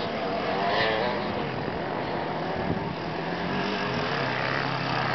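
Dirt bike engine revving up and down as the bike rides over rough ground, growing a little louder as it comes closer, then running more steadily.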